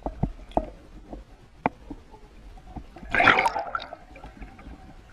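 Water heard from an underwater camera: scattered short clicks and knocks, then a burst of splashing about three seconds in as a hooked Eastern freshwater cod thrashes at the surface.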